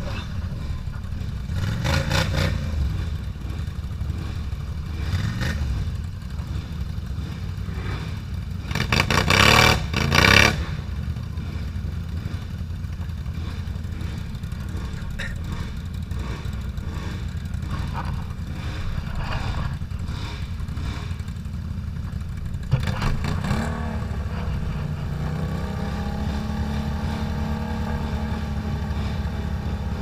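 ATV engines running and revving while the quads churn through deep mud. There is a loud burst of noise about nine seconds in, and near the end one engine's note climbs and holds as it revs.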